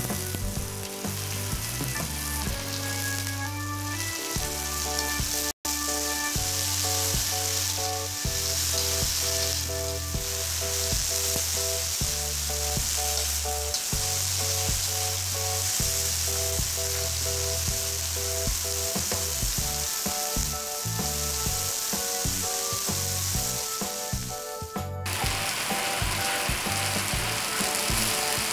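Sliced chilies, tomato and shallots sizzling in hot oil in a wok as they are stir-fried with a metal spatula; the sizzle is strongest in the middle stretch, with a brief dropout about five seconds in.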